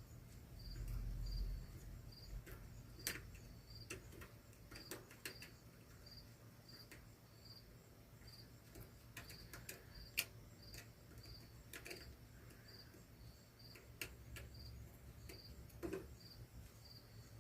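A cricket chirping steadily in the background, an even run of short high chirps. Over it come scattered light clicks and taps of small parts and a screwdriver being handled, with a brief low bump about a second in.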